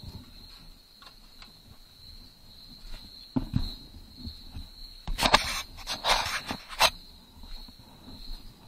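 Crickets trilling steadily in the background. A couple of knocks come about three and a half seconds in. Loud rustling and scraping bursts, from gear being handled close by, follow between about five and seven seconds in.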